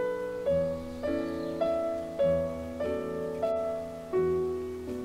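Background piano music: a slow run of notes and chords, each struck and left to fade, a new one about every half second.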